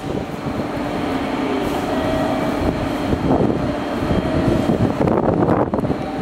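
JR Kyushu A-Train diesel railcar (KiHa 185 series) pulling into the platform and coming to a stop, its diesel engine running with a steady rumble. There is a louder rush of noise about five seconds in.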